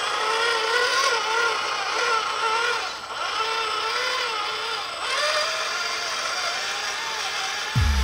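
Electric motor and gearbox of a Cross RC UC6 6x6 radio-controlled truck whining as it drives, the pitch rising and falling with the throttle.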